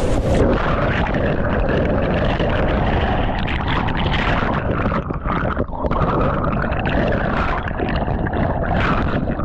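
Whitewater churning, heard underwater from a capsized kayak: a loud, muffled rushing and gurgling. The bright hiss of the rapid drops away about half a second in as the water closes over.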